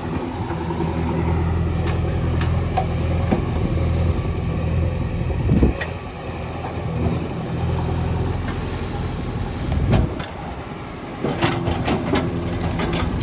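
JCB backhoe loader's diesel engine running steadily while digging, with two heavy thumps about five and ten seconds in and a run of metallic clanks near the end.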